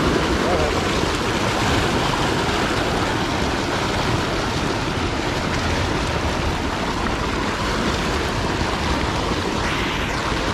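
Steady rushing of river water, an even hiss and rumble with no break.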